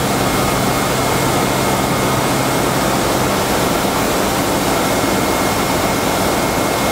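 Industrial processing machinery and its conveyor running: a loud, steady mechanical noise with a constant thin high whine and a low hum underneath.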